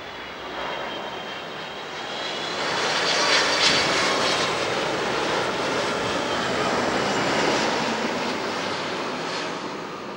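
Airbus A330-200 with Pratt & Whitney PW4000 turbofans passing low overhead on final approach: a rushing jet noise with a high whine on top, swelling to its loudest a few seconds in, then slowly fading.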